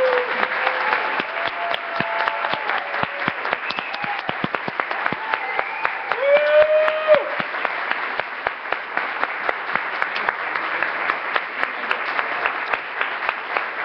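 Audience applauding, a dense run of claps, with a few voices calling out over it near the start and about halfway through.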